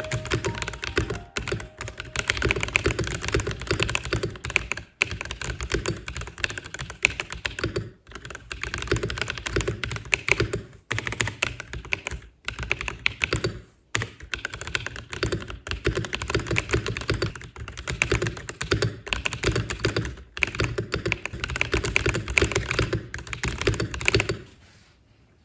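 Continuous fast typing on a MelGeek Mojo68 mechanical keyboard fitted with JTK Mint HSA-profile keycaps: a dense run of keystroke clacks broken by several brief pauses, stopping near the end.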